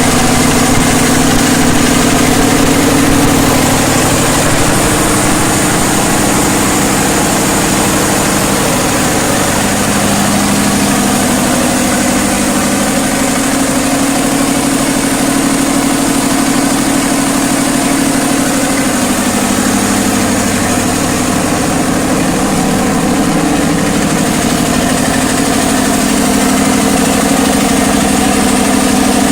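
500 kVA FG Wilson diesel generator set running at a steady speed, a loud, even engine drone.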